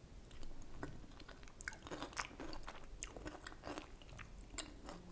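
A person chewing a mouthful of apple walnut chicken salad close to the microphone, with many short, crisp crunches from the walnuts, apple and greens.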